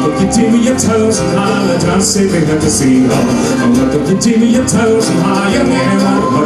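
Scottish folk band playing live, with melodic lines over a steady beat and sharp percussive hits about twice a second.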